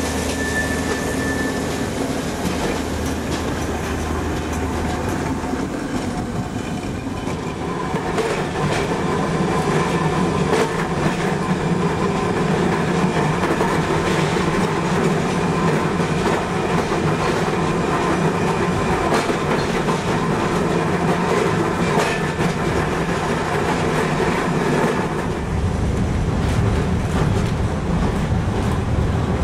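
Electric tram running along its rails, with scattered clicks from the wheels and track. It gets louder about seven seconds in.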